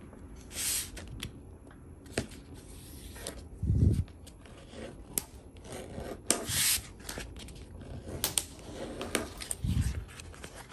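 Sheet of wood leather being folded and creased by hand on a cutting mat: short rubbing and scraping strokes with scattered sharp ticks, and two dull thumps, one about four seconds in and one near the end.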